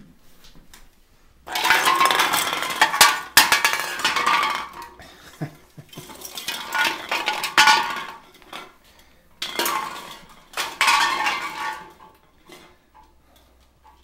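Cans clattering, knocking and rolling across the floor as a yellow-naped amazon parrot tosses them out of its toy box. They come in three spells of clatter with short pauses between.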